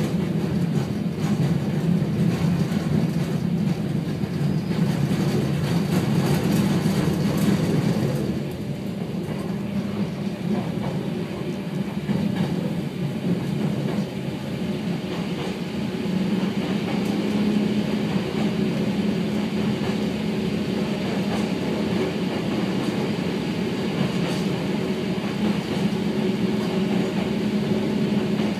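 Hakone Tozan Railway electric train running on the mountain line, heard from inside the front car: steady wheel-on-rail running noise with a low hum, passing through a tunnel partway. The noise drops a little about eight seconds in.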